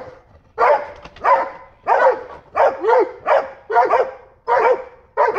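Dogs barking in a fast, steady run, about two barks a second and some in quick pairs, at a possum they have bayed on top of a fence.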